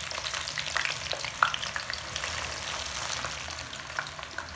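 Masala-coated jackfruit pieces frying in hot oil in a pan: a dense sizzle with scattered sharp crackles and pops, one loud pop about a second and a half in, easing slightly toward the end.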